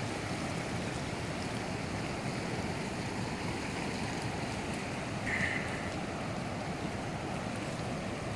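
Floodwater running steadily past in a constant rushing wash. A brief high-pitched sound comes about five and a half seconds in.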